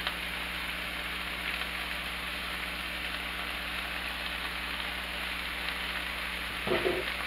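Thinly sliced onions, bell peppers and mushrooms sizzling steadily in hot oil in a frying pan. A short low sound breaks in near the end.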